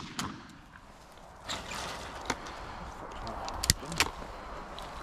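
Rustling handling noise with a few sharp clicks, the loudest two close together near the end: a shotgun being handled by someone moving across a field.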